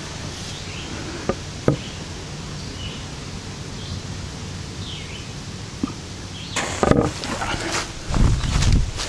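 A lit firecracker going off weakly about seven seconds in: a short sputtering hiss ending in a small crack, not a full report, so it does not perform as the user expected.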